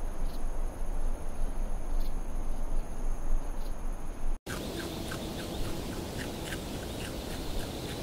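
Outdoor animal sounds from two recordings. First, two steady high tones over a low rumble with a few faint clicks. Then, after an abrupt cut about halfway through, a rapid run of short repeated calls over a steady hum.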